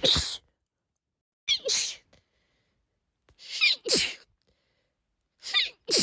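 A woman sneezing over and over, about one sneeze every two seconds. Each is a quick catch of breath followed by a loud "achoo"; one is just ending at the start and three more follow.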